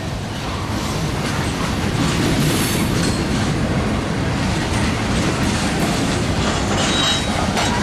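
Freight cars, a tank car and covered hoppers, rolling past at close range: a steady rumble of steel wheels on rail with repeated clicking as the wheels cross rail joints.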